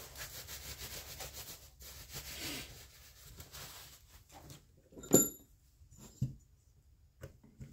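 Cloth shop towel rubbing over the oily engine block of a chainsaw for about four seconds, then a single sharp click about five seconds in and a few lighter knocks as the block is handled on the bench.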